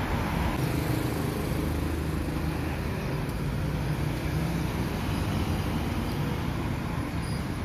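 Steady road traffic noise: an even, low rumble with no distinct events standing out.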